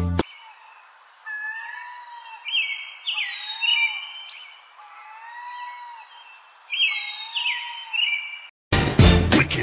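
Birds calling: repeated short chirps and lower whistled notes over a faint hiss. Music cuts in near the end.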